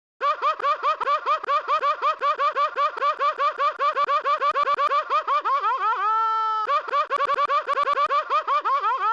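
A sound effect made of a rapid run of short, pitched, voice-like chirps, about eight a second, like a cartoon giggle. About six seconds in, it breaks into a single held tone for a moment before the chirping resumes.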